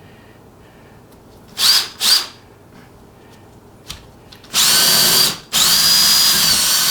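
Electric power drill: two quick trigger blips, then a run of about a second, a brief stop, and a longer run of about two seconds, its motor whining steadily.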